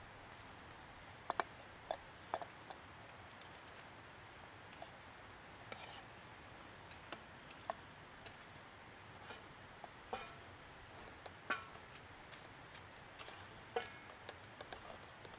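Toasted breadcrumbs scraped with a wooden spatula out of a pan into a metal mug: faint, scattered scrapes and clicks, with the odd short ring as the pan touches the metal mug.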